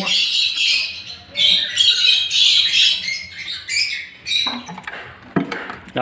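Many caged small parrots chattering and squawking in rapid, high-pitched bursts, with a single knock near the end.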